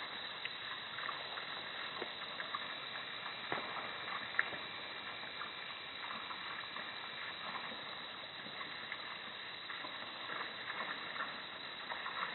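Steady outdoor night ambience through a security camera's microphone: an even hiss with faint steady high tones and a few scattered soft clicks.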